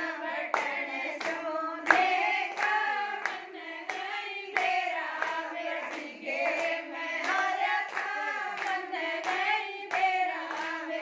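A group of women singing a jachcha geet, a North Indian folk song celebrating a newborn, in unison while clapping their hands to keep time, about three claps every two seconds.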